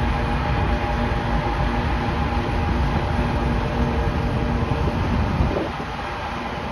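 Canadian Pacific GE ES44AC diesel locomotive passing slowly, its engine running with a steady drone over the heavy rumble of the train. The low rumble eases off about five and a half seconds in.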